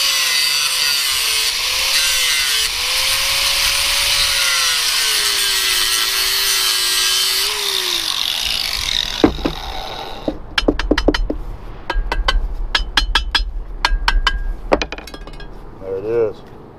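Angle grinder with a flap disc grinding old nickel weld off a cast-iron pump housing, its motor pitch wavering under load, then winding down about eight seconds in. After that come sharp metallic clinks and knocks as the broken pieces of the cast-iron casting are handled.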